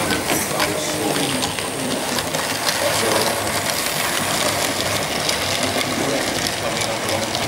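Model LSWR tank locomotive hauling coaches on a layout: a small electric motor whirs steadily, with many small clicks from the wheels on the track.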